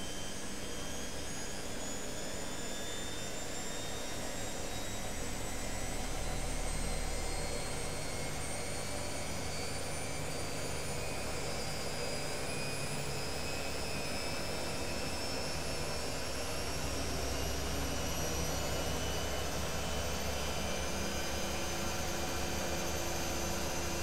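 Candy Grand'O GO145 front-loading washing machine in its spin cycle: a steady motor and drum noise with a whine that rises slowly as the drum speeds up.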